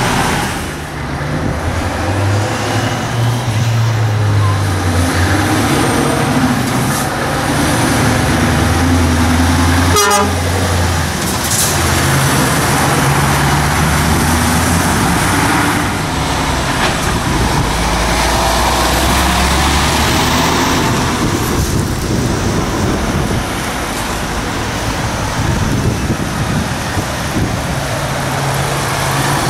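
Diesel engines of articulated lorries, among them a Scania and a Renault T, running as the trucks drive past one after another, their low engine note changing as each goes by, over tyre and traffic noise.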